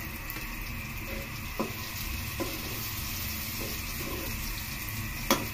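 Chopped garlic and onion sizzling in oil in a metal wok, stirred with a spatula: a steady hiss with a few light taps, and a sharp clink of the spatula on the wok near the end.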